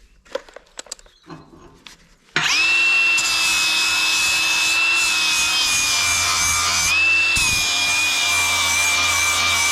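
A few light knocks, then a handheld power tool starts suddenly about two seconds in and runs with a steady high whine. Its pitch lifts briefly a few times.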